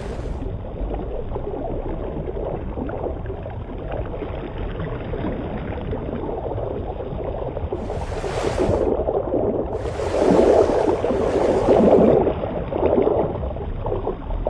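Muffled underwater water noise: a low rushing and gurgling that swells louder about eight seconds in and again from about ten to twelve seconds.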